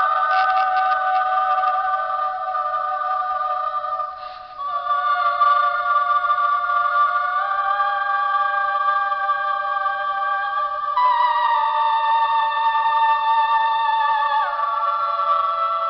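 A ringtone playing through a phone's small speaker, thin with no bass: long held musical chords of several tones, moving to a new chord every three or four seconds, with a short break about four seconds in.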